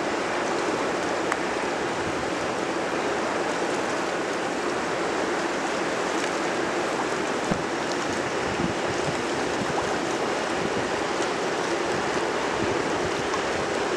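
Steady rushing of river water and wind past a boat under way, with a faint steady hum underneath and one short knock about halfway through.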